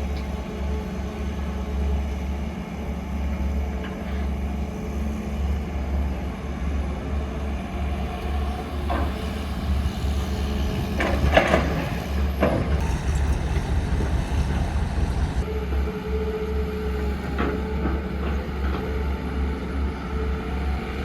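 Heavy diesel machinery engine running steadily with a deep, constant rumble. A few short, harsh metallic sounds come about eleven to twelve seconds in.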